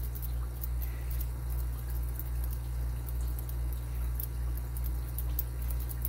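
A worm rake scraping in and out of a five-pin brass padlock's keyway, making faint irregular metallic clicks and scratches as it rocks over the pins. A steady low hum runs beneath.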